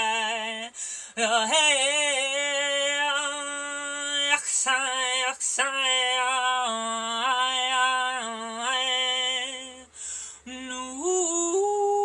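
A woman singing wordless light language phrases with wavering vibrato, broken by short breaths. Near the end the pitch slides up into a steady, pure held tone.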